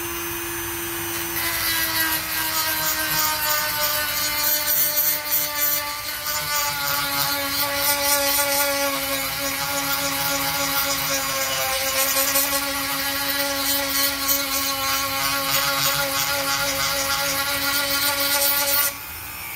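Handheld rotary grinding tool running with a steady motor whine; about a second in, its abrasive bit starts grinding the underside of a chromatic harmonica slider, adding a loud high grinding hiss, and the pitch sags slightly now and then under load. Both stop shortly before the end.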